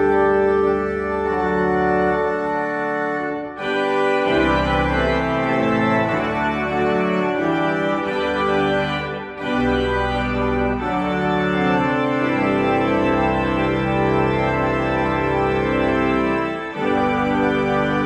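Church organ playing sustained chords that move from one to the next, with three brief breaks between phrases.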